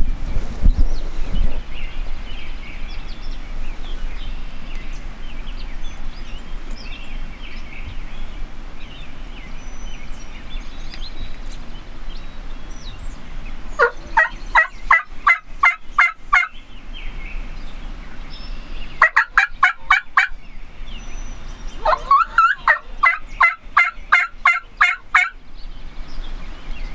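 Turkey yelps: three runs of evenly spaced pitched notes, about four a second, a few seconds apart. Faint small-bird calls sound in the background before them.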